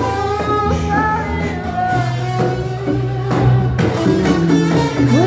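Live band playing rock music, with singing over electric guitar, bass and drums.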